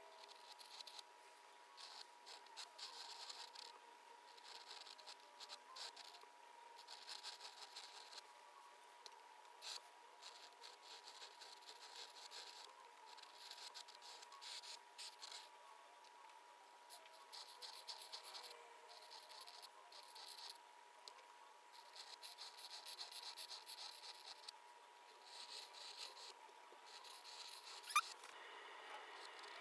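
Flex-nib pen scratching across paper in short strokes, one after another with brief pauses between. A faint steady high whine runs underneath and stops with a sharp click near the end.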